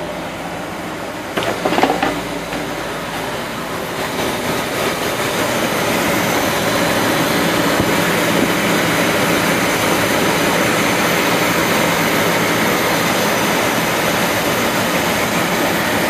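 1972 Corvette's LS5 454 big-block V8 idling steadily and smoothly after an overhaul with a new carb and exhaust, no misfire. A brief clatter of knocks comes about a second and a half in. The engine gets louder from about five seconds in as it is heard close up in the engine bay.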